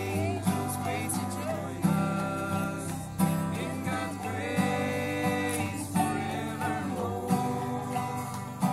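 Acoustic guitar strummed and a banjo picked together in a country or bluegrass style, with a voice singing along.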